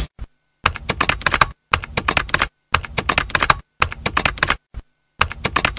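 Keys typing rapidly in runs of just under a second, about five runs separated by short pauses, with a few single clicks in between.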